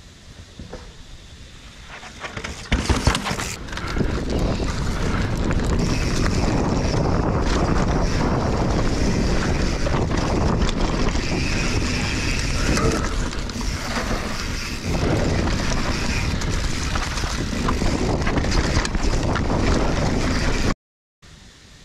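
Steady rush of wind on an action camera's microphone, with the tyres crunching over dirt and rocks and the mountain bike rattling and knocking as it descends a rocky downhill trail. A loud burst comes about three seconds in. The riding sound runs steadily from about four seconds and cuts off abruptly near the end.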